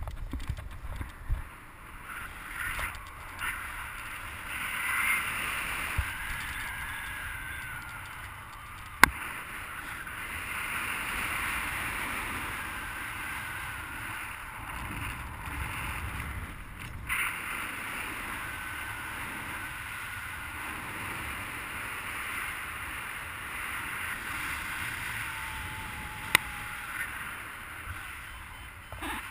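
Airflow rushing over the camera microphone during a paraglider flight: a steady rush with low buffeting, faint wavering whistles, and two sharp clicks.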